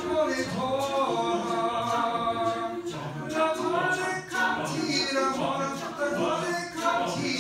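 Mixed choir singing a cappella, holding long chords that move from note to note.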